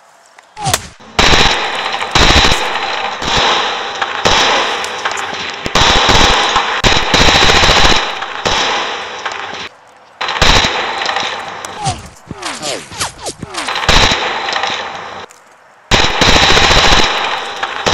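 Rapid, near-continuous bursts of automatic gunfire. They break off briefly about ten seconds in and again near the end, then start again, with a few falling whistles partway through.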